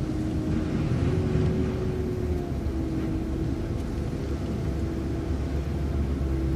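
City bus running along the road, heard from inside: a steady low rumble from the engine and drivetrain with a steady whine that steps up slightly about a second in and drops back down a second or so later.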